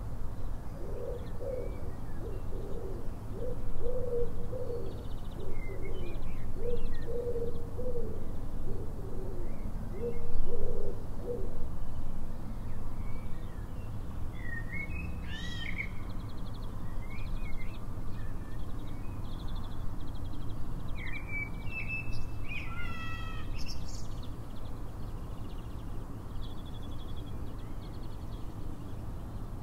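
A pigeon cooing in a run of repeated low phrases for the first ten seconds or so, while small songbirds chirp and twitter in short, high calls through the middle and again near the end, over a steady low background rumble.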